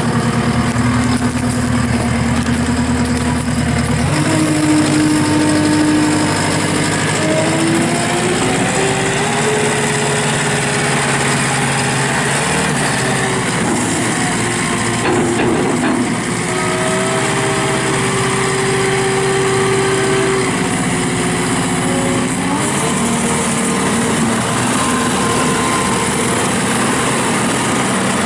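2016 JCB 260T skid steer loader's diesel engine running. It steps up from idle to a higher speed about four seconds in, rises and falls in pitch through the middle, and settles back down near the end.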